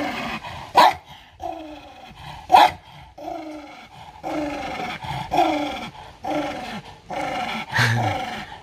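Dog growling aggressively in a string of short, falling growls, broken by a few sharp barks.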